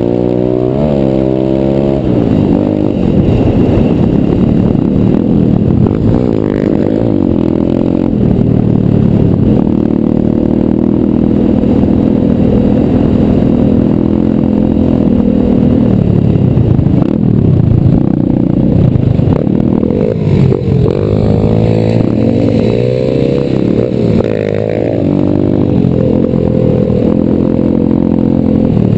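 125cc pit bike engine running while ridden, its pitch rising and falling as the throttle is worked and gears change, with a stretch of steady throttle in the middle.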